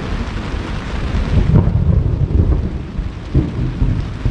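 Thunder rumbling overhead, swelling about a second and a half in, over light rain.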